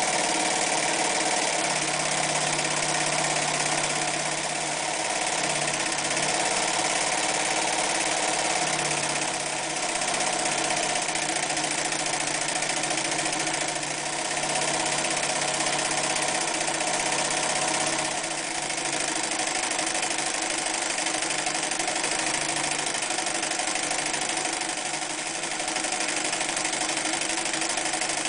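Singer 316G sewing machine running continuously at speed, motor and needle mechanism going steadily as it sews decorative stitches. The level dips slightly a few times.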